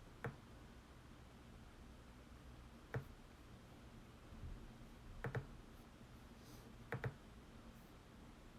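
Computer mouse clicking in a quiet room: single clicks near the start and about three seconds in, then two quick double clicks later on, over a faint steady hum.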